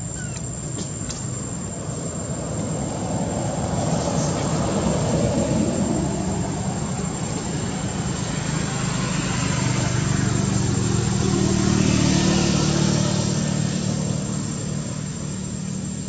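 Motor vehicles going past: engine and tyre noise swells up about four seconds in, eases, then swells again with a steady engine hum around the middle to late part before fading.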